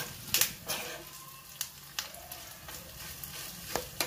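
Spices and curry leaves sizzling softly in hot oil in a small pan, while a steel spoon stirs them, scraping and knocking sharply against the pan several times.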